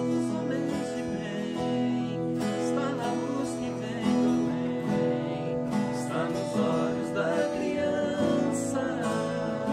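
Two acoustic guitars played together, strummed chords under picked notes, with a man's voice singing along at times.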